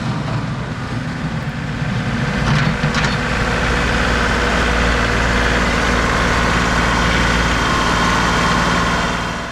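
Compact diesel tractor engine running under load while the tractor pushes snow with its front loader bucket. It gets louder about two and a half seconds in and eases off near the end.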